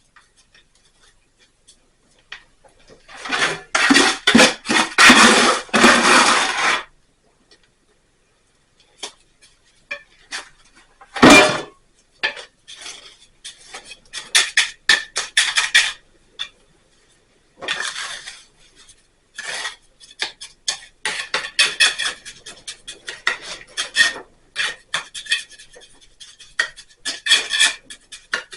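A metal hand tool scraping and clinking against hard material in irregular bursts: a long loud scrape a few seconds in, a single sharp knock near the middle, then many short scrapes and clinks.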